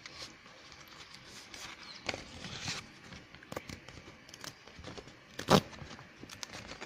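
Paper envelope being torn open by hand: soft paper rustling with small crackles, and one sharper rip about five and a half seconds in.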